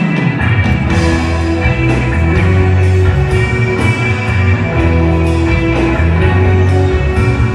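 Live rock band playing loudly: electric bass holding long low notes, with electric guitar and drums.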